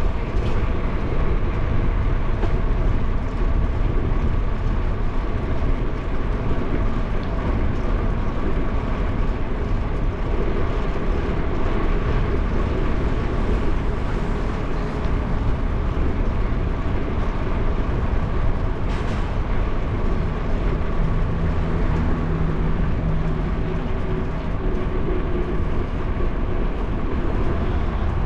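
Steady wind rush on the microphone of a camera riding on a moving bicycle, with the rolling hiss of tyres on a paved bike path. A low steady hum joins for a few seconds about twenty seconds in.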